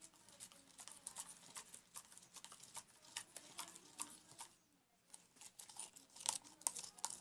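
A spoon stirring slime made of white glue and detergent solution, with irregular small clicks and taps of the spoon against the container. It stops briefly a little past the middle, then the taps come louder near the end.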